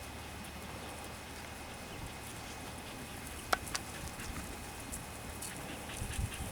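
Quiet outdoor ambience: a steady low rumble with faint scattered ticks, and one sharp click about three and a half seconds in.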